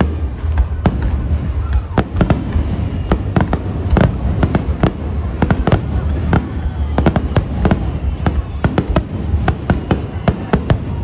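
Aerial fireworks going off in a dense barrage: many sharp bangs in quick succession, several a second, over a continuous low rumble of overlapping booms.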